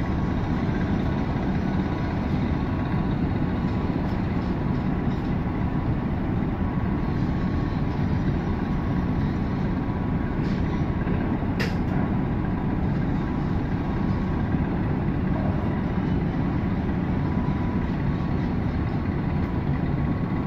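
Steady low rumble with a faint steady hum from a moored ferry's diesel engines running at berth.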